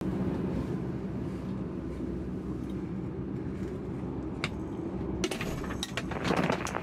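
Cessna 172 engine running steadily, heard as a low hum from inside the cabin, with a few clicks in the second half.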